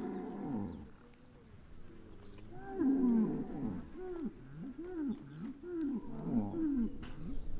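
Cattle lowing: one falling moo at the start, then from about two and a half seconds a long, wavering low call whose pitch rises and falls over and over, with another call starting near the end.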